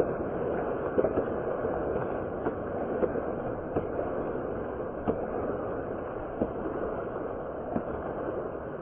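Crowd applause: many hands clapping in a dense, even patter with sharper individual claps standing out, slowly easing off in loudness.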